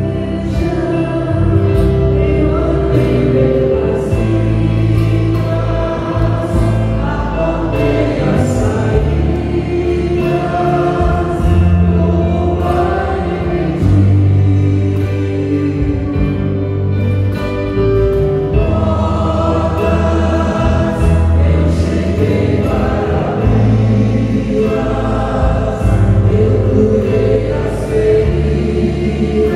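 A small group of singers singing a hymn in Portuguese together, accompanied by a stage piano and an acoustic guitar.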